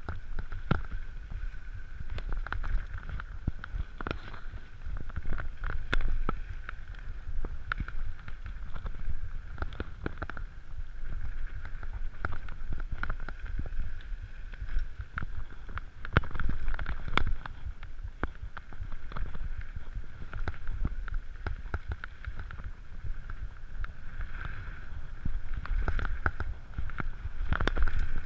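Mountain bike riding fast down a rough dirt trail: a steady low rumble of wind on the microphone, with frequent rattles and clunks as the bike goes over bumps.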